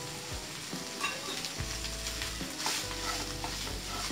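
A wooden spatula stirs and scrapes spiced fish scramble around a nonstick frying pan, with oil sizzling underneath as the added chilli powder, coriander powder and garam masala fry in. The scrapes come irregularly over a steady sizzle.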